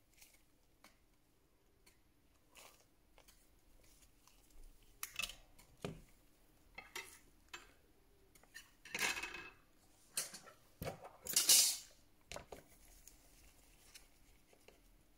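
Small metal repair tools and phone parts being handled: a string of uneven light clinks, taps and scrapes. The two longest and loudest scrapes come near the middle and about three-quarters of the way through.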